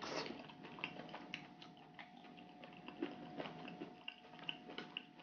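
Soft, close-miked eating sounds: a short slurp of thick spicy broth from a spoon at the start, then scattered small wet clicks and smacks of chewing boneless chicken feet.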